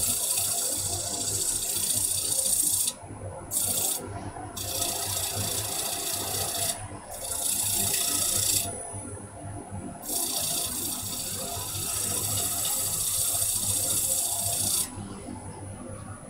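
Sandpaper hissing against a turned wooden plate spinning on a lathe at about 680 rpm. The hiss breaks off briefly several times and drops away near the end, over a steady hum from the lathe and dust extractor.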